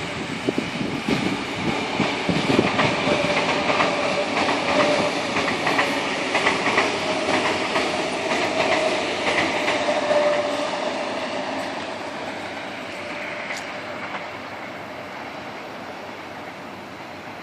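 A train passing by, its wheels clattering in quick clicks over the rail joints with a steady whine, loudest for the first ten seconds, then fading as it moves away.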